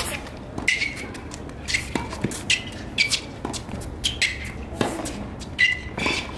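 Tennis rally on a hard court: a string of sharp pops as racquets strike the ball and the ball bounces, coming every half second to second, several with a short ringing ping from the strings.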